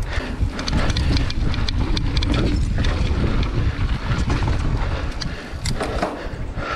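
Mountain bike being ridden: a steady wind rumble on the microphone, with frequent clicks and rattles from the bike over rough ground.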